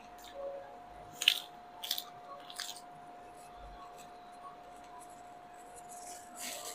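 Crisp crunching of a raw lettuce leaf being bitten and chewed: three short crunches in the first three seconds and another near the end. A faint steady hum lies underneath.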